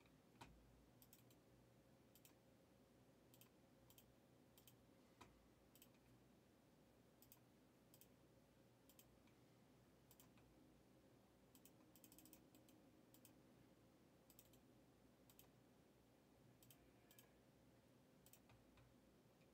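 Near silence broken by faint, scattered clicks of a computer keyboard and mouse being typed on, with a short run of keystrokes about twelve seconds in.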